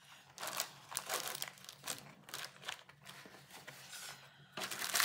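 Clear plastic packaging crinkling in irregular rustling bursts as it is handled, loudest near the end.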